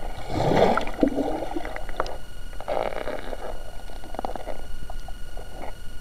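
Muffled underwater sound picked up by a submerged camera: water gurgling and sloshing with bubbles and small clicks, loudest about half a second in.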